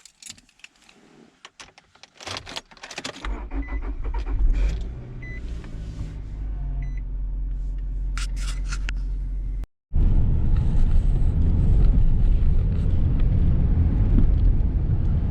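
Clicks and rattles of handling inside a Nissan X-Trail, then its engine starts and idles, with a few short dashboard beeps. After a short break, louder steady engine and road noise heard from inside the cabin while the car is driving.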